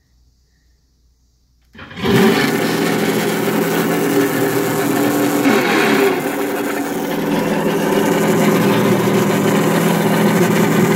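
An RC car's onboard audio (OBA) sound module playing a simulated engine through its speaker: quiet at first, it starts up about two seconds in and then runs steadily at a low engine note. The drive motor is disconnected, so the engine sound comes from the speaker alone.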